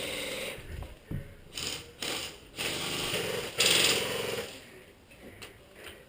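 Airsoft guns firing on full auto: a rapid mechanical rattle in several bursts, the loudest and longest about three and a half seconds in.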